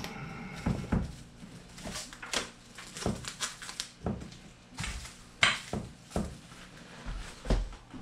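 Plastic cling wrap crinkling and crackling in irregular bursts as it is stretched and pressed over a baking dish, with a few dull knocks of handling on the counter, the heaviest near the end.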